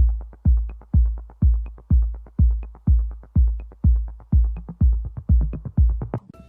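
Electronic dance music: a steady deep kick drum beat about twice a second with faint ticks above it, cutting off near the end.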